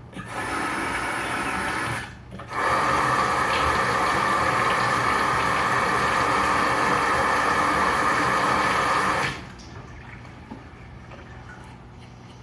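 Kitchen tap running into the sink in two spells: a short run of about two seconds, a brief break, then a longer, louder run of about seven seconds that is shut off abruptly.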